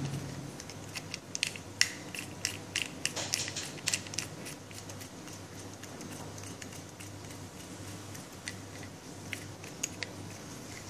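Small plastic-and-metal clicks and taps as a black plastic fiber-optic hand tool with a metal rack and wing nut is handled and adjusted. The clicks come thick in the first few seconds and again a few near the end, over a low steady hum.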